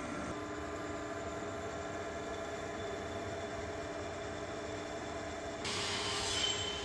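Metal lathe running steadily with a hum from its motor and gearing. Near the end a louder hiss with a brief high-pitched tone as the grooving tool cuts into the spinning metal bar.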